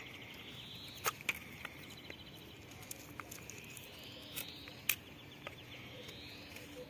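A few sharp clicks of a folding knife cutting into a small wooden stick, the loudest about one and five seconds in. Faint rising trill calls repeat in the background, about one every second and a half.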